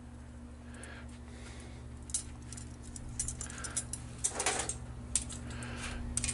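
Scattered light clicks and scrapes of metal tools and charcoal briquettes against a cast-iron camp cooker, with a longer scrape about four and a half seconds in, over a steady low hum.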